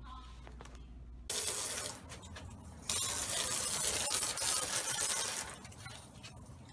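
Garden hose spraying water onto a wooden deck: a hiss that starts suddenly about a second in, comes in two long spells and falls away near the end.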